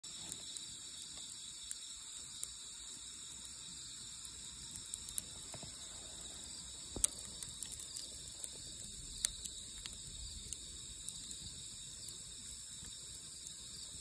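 Steady high chorus of night insects chirring, with scattered sharp pops and crackles from wood burning in a campfire, the loudest pops about seven and nine seconds in.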